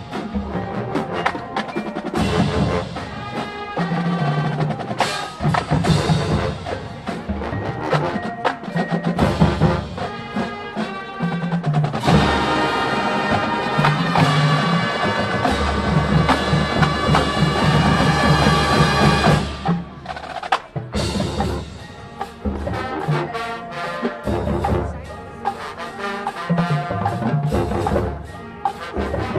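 College marching band playing its field show: a percussion-heavy passage of drum and mallet strikes, with the full band coming in louder about twelve seconds in and dropping back near twenty seconds.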